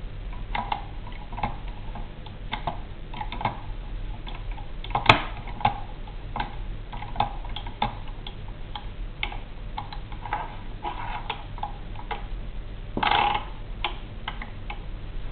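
Odell No. 4 index typewriter being worked, its mechanism giving irregular sharp clicks. One click about five seconds in is much louder, and near the end comes a short rattle of about half a second.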